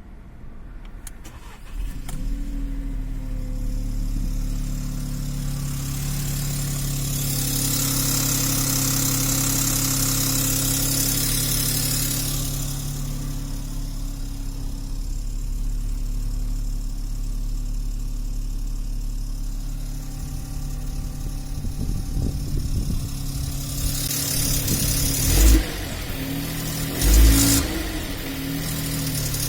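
Seat Toledo 1.0 TSI three-cylinder turbo petrol engine starting about two seconds in, then idling cold with a rattling noise after the start that is strongest over the first ten seconds or so before it settles. Near the end there are a few loud low thumps.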